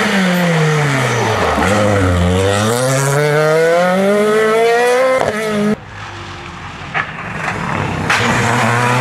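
Renault Clio rally cars at full stage pace. The first lifts off and brakes into a bend, its engine pitch falling, then accelerates hard away with the revs climbing steadily. Near 6 s there is an abrupt cut to a second Clio, quieter at first and then running at a steady high engine note.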